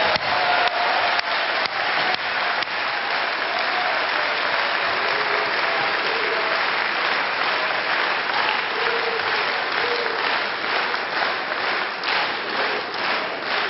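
Large hall audience applauding, dense and steady. Near the end the clapping falls into unison rhythmic clapping at about three claps a second.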